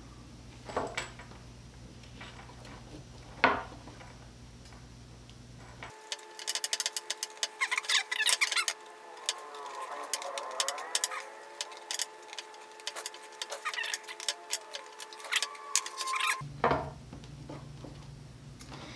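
Small plastic parts and a cable being handled by hand: scattered clicks and taps, then about six seconds in a long run of rapid clicking over a faint steady hum that cuts off suddenly about ten seconds later.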